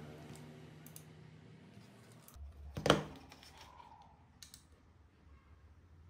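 Bench handling noises: a few light clicks of multimeter test probes and parts on a cutting mat, with one much louder knock just under three seconds in. A faint low hum comes in shortly before the knock.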